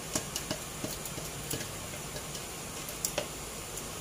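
Rendang spice paste cooking in oil in a wok: a faint steady sizzle with scattered small pops and ticks, several near the start and a couple about three seconds in.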